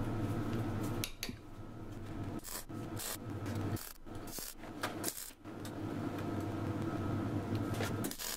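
MIG welder tack-welding joints on a cast iron window frame with ordinary wire and no preheat. The arc crackles in a run of short bursts with brief breaks between tacks, over a steady electrical hum.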